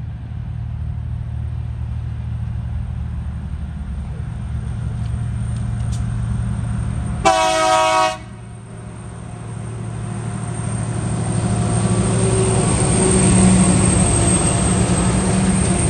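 TasRail TR class diesel locomotive hauling a freight train up a grade, its engine drone steady. About seven seconds in, one short horn blast lasts just under a second. In the second half the train sound grows steadily louder and noisier as it draws nearer.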